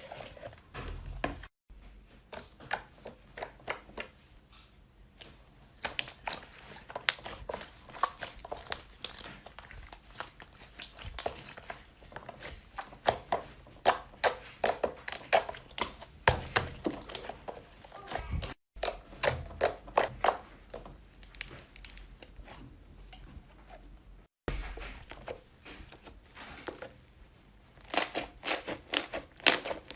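Slime being squeezed and pressed by hand, with quick runs of crackling, popping clicks.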